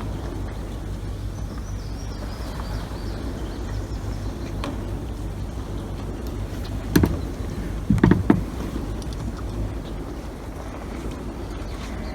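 A steady low rumble, with a few sharp knocks about seven seconds in and a quick cluster of them about a second later, as the plastic kayak and its gear are bumped during boarding at the shore.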